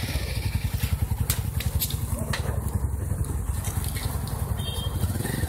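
A motor vehicle's engine idling close by, a steady rapid low throb.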